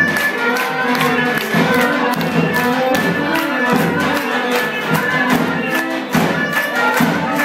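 Traditional Turkish folk dance music playing loudly with a steady beat of about two strokes a second, and an audience clapping along.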